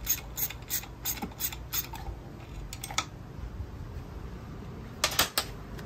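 Ratchet wrench clicking in quick, even strokes, about three a second, as a bolt on a starter motor is turned; the clicking stops about two seconds in. A few scattered metal clinks follow, the loudest a quick group of three near the end.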